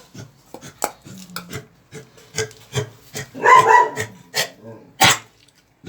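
A dog gives one short bark-like sound, about half a second long, a little past halfway, over light clicking and scraping, with a sharp knock about five seconds in.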